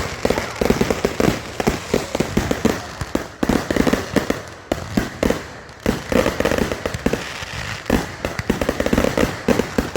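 Fireworks going off: a rapid, continuous run of crackling pops, like a string of firecrackers, easing briefly a couple of times.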